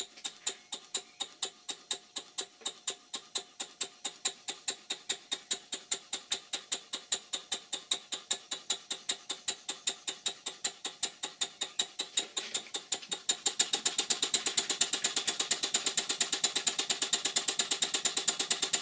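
Stuart 5A model steam engine running on compressed air, making a regular clicking beat once per stroke. The beat gradually speeds up and grows noticeably louder and faster about thirteen seconds in.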